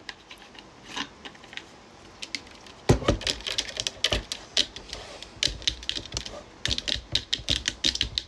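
Fingernails clicking and tapping on a Buzzball Biggie bottle, sparse at first; after a louder knock about three seconds in, the clicks come fast and dense. It is a sound likened to nails on a chalkboard.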